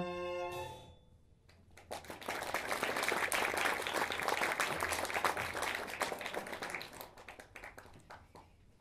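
A string ensemble's final held chord stops within the first second. After a short pause the audience applauds for about five seconds, and the clapping fades away near the end.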